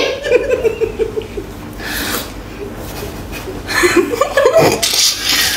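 Young women chuckling and breathing out stifled laughs, breaking into louder laughter in the last second or two.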